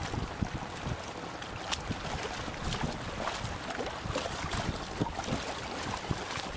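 Seawater sloshing and splashing among concrete breakwater blocks, with many small splashes over a steady wash. Wind noise on the microphone adds a low rumble.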